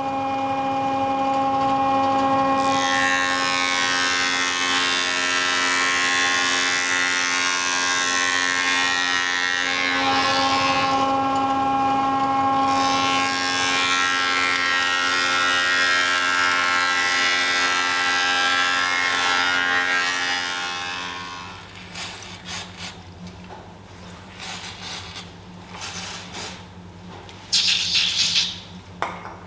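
Record Power planer-thicknesser running with a steady whine, its cutter block hissing as a board is fed through twice, each pass lasting about seven seconds. The machine stops about two-thirds of the way in. After that come scattered light clicks and short spray-can hisses near the end.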